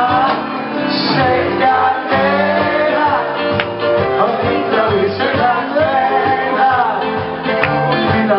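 Male singer singing into a microphone with a live band, electric guitar and drums, heard from the audience in a concert hall.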